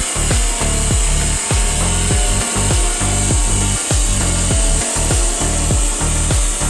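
Background music with a heavy electronic beat: booming bass kicks that drop in pitch, several a second, over a stepped bass line and a steady high hiss.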